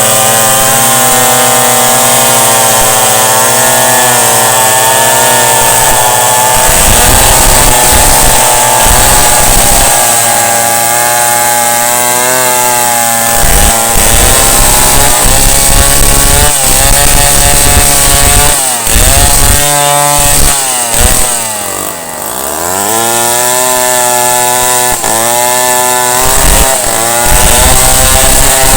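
Chainsaw running hard while cutting a tree, its engine pitch wavering up and down under load. About three-quarters of the way through the engine speed drops sharply and then climbs back to full revs.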